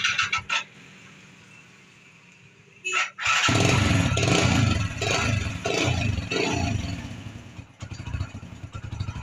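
A small single-cylinder motorcycle engine, freshly refilled with engine oil, is started about three seconds in. It catches at once, is revved a few times, then drops back toward idle.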